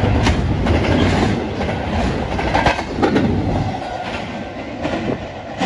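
BNSF intermodal train of double-stack container well cars passing close at speed: a steady rush of steel wheels on rail with clickety-clack at the rail joints. The noise fades over the last couple of seconds as the end of the train goes by.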